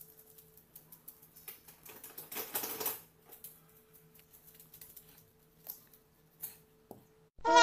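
A small dog's claws ticking on a wooden floor and a woven bamboo mat as it walks, light irregular clicks with a brief rustle about two and a half seconds in. A faint steady hum runs beneath.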